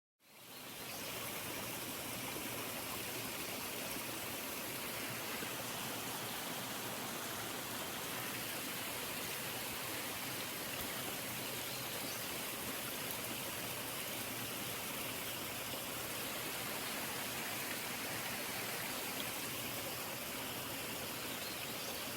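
A waterfall's water rushing in a steady, unbroken roar. It fades in quickly at the start.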